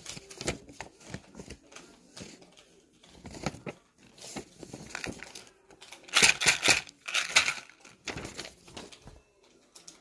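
Sheets of paper being handled on a desk: rustling and crinkling in irregular bursts with light taps, loudest in two bursts about six and seven seconds in.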